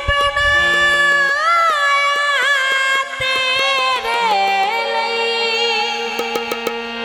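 Song music: an ornamented melody line with sliding pitch bends, held over regular drum strokes and low sustained bass notes.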